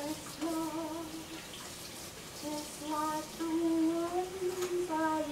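A woman singing a slow tune in long held notes, over a kitchen tap running into the sink as dishes are rinsed.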